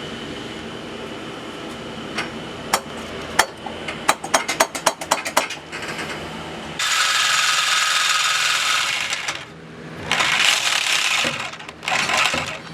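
Metal clinks and knocks as parts and tools are handled, then a handheld power cutting tool runs against metal in one long burst of about two and a half seconds, followed by two shorter bursts.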